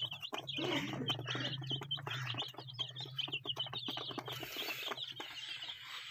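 A brooder full of young chicks peeping: a dense, continuous chorus of short, high cheeps, over a steady low hum.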